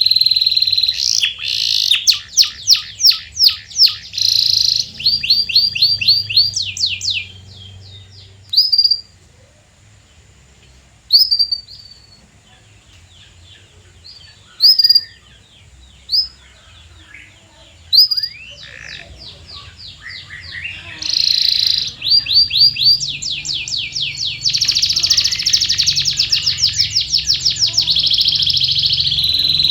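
Domestic canary singing: fast rolling trills of rapidly repeated notes, broken in the middle by a quieter stretch of single sharp chirps, then long rapid trills again toward the end.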